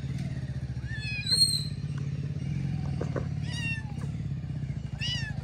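A very young kitten mewing three times: thin, high calls that rise and fall, the loudest about a second in. A steady low mechanical drone runs underneath.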